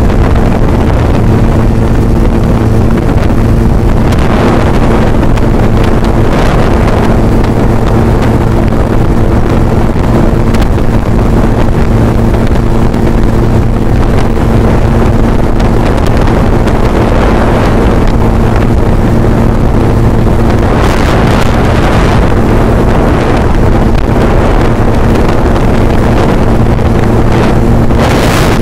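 Motor scooter's engine running at a steady cruising pitch while riding, with heavy wind noise buffeting the microphone.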